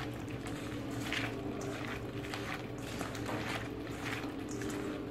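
A hand mixing cut okra with wet onion and garlic paste and spice powders in a stainless steel bowl: soft, irregular squelching and rustling. A steady low hum runs underneath.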